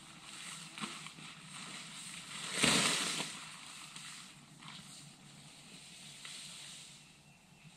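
Rustling and crumpling of a camping tarp being pulled down off a tent, with one louder rustle about three seconds in and a few small clicks.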